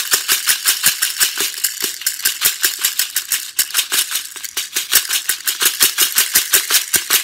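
Plastic airsoft BBs rattling as their bottle is shaken upside down over a clear magazine to load it: a fast, steady run of sharp clicks, about six shakes a second.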